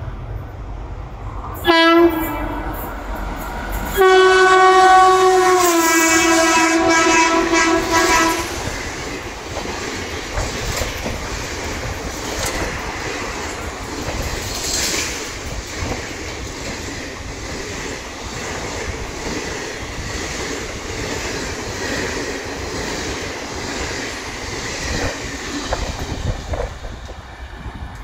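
WAP-4 electric locomotive's air horn sounds a short blast about two seconds in, then a long loud blast from about four to eight seconds whose pitch drops as the engine passes. After that the express coaches run by with a steady clickety-clack of wheels over rail joints, easing off near the end as the train draws away.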